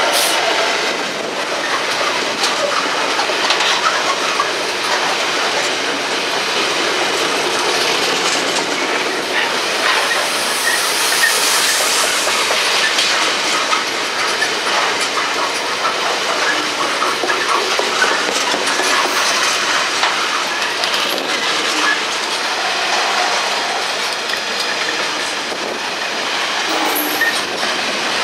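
Loaded bogie coal hopper wagons of a freight train rolling past, a loud steady rumble of wheels on rail with clickety-clack over the rail joints.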